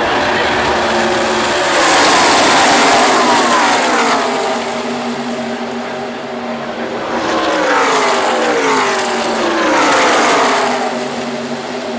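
A pack of NASCAR Truck Series race trucks with V8 engines passes at full racing speed. The engine note falls in pitch as they go by, in two waves: a loud one about two seconds in and another from about seven to ten seconds.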